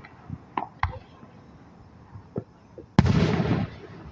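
Fireworks going off: a few small pops in the first second, then one loud, sharp bang about three seconds in, trailing into a short crackling rumble.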